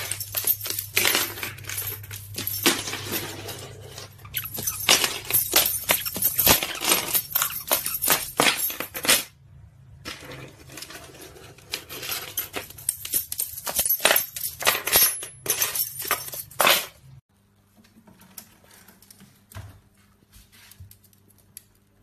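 Rapid, irregular clicking and clinking of hard things knocking on a wooden floor as a white-bellied caique scampers about and pushes things around. The clicks pause briefly about nine seconds in and cut off at about seventeen seconds, after which only a few faint ticks remain.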